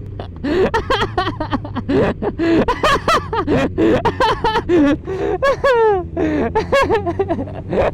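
A man laughing hard in long bursts of voice, with one falling whoop about two-thirds of the way in. Under it runs a steady low hum from a running motorcycle engine.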